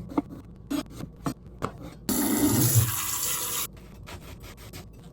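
A few light clicks and knocks, then water running from a tap in a sudden rush for about a second and a half before it is turned off.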